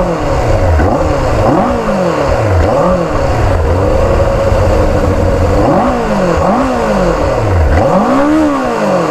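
QJ Motor SRK 600's 600 cc inline four-cylinder engine on its stock exhaust, revved in a series of quick throttle blips from idle, each rising and falling in pitch, with a longer, higher rev near the end.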